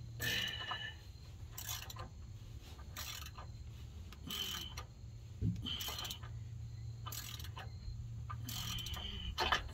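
Socket wrench ratcheting in repeated strokes, a short burst of pawl clicks about every second and a half, as a loosened 13 mm nut holding a factory bump stop is backed off. A low steady hum runs underneath.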